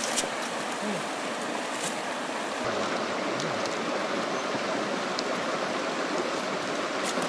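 Shallow, rocky river flowing, a steady rush of water.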